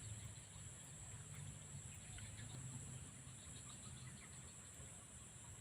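Faint insect chorus: a steady high-pitched drone, with a low rumble underneath.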